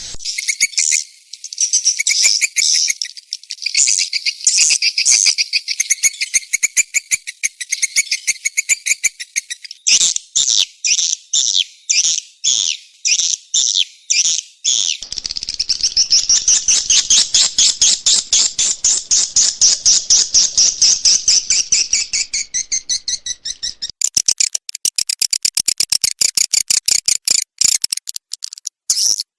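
Swiftlet lure call played back for swiftlet-house farming: rapid, high-pitched twittering chirps, many a second. The pattern switches abruptly about 10 s, 15 s and 24 s in, with a denser, more continuous twitter in the middle.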